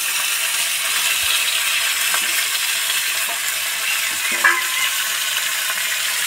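Fish heads sizzling steadily as they fry in hot oil in a steel wok, with a few light clinks, the loudest a little past the middle.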